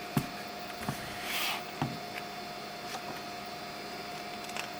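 Quiet room tone with a steady faint hum, a few soft clicks and a brief rustle about a second and a half in.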